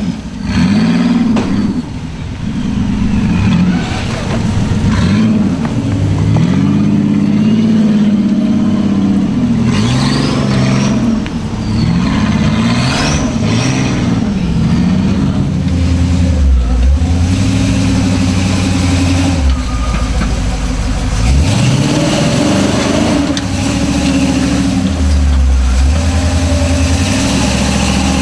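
Rock buggy's engine revving up and down again and again as it crawls and bounces up a boulder climb, the pitch swinging with each throttle blip.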